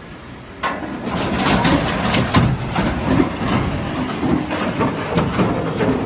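A steel truss bridge collapsing under a truck loaded with an excavator. About half a second in comes a sudden loud crash, then a continuous crashing rumble full of sharp bangs and cracks as the bridge, truck and excavator fall.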